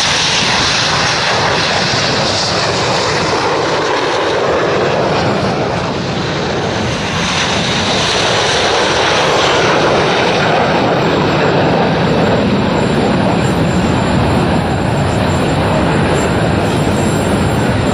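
Jet engines of Red Arrows BAE Hawk T1 display aircraft flying by: a loud, continuous jet rush with a slight dip about six seconds in.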